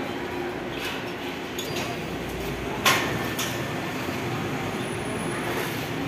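Steady construction-site background noise with a few light clicks and one sharp knock about three seconds in, from workers handling cable and steel scaffolding.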